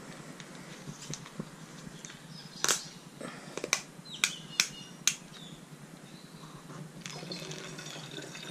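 Plastic jugs and a screw cap being handled on a table: a run of sharp clicks and knocks in the middle, then liquid starting to pour from a plastic jug into a funnel near the end.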